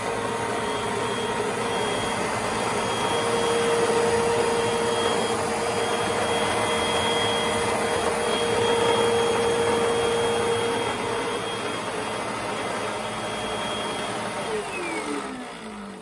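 Two upright vacuum cleaners, a Shark Rotator Pro Lift-Away and an older Eureka, running together at full power with a steady whine. Near the end they are switched off and one motor spins down slowly in a falling whine.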